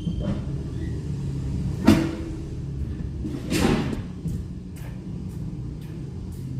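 Car engine idling with a steady low hum, heard from inside the cabin. There is a single sharp knock about two seconds in, and a louder rustle and clatter around the middle.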